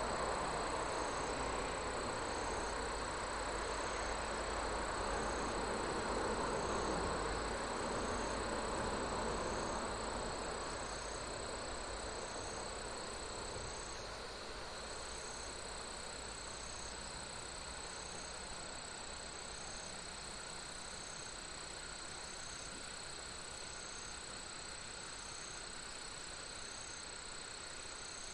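Insects chirping in a steady high chorus, with one pulsing call repeating about once a second, over a soft rushing sound that eases off after about ten seconds.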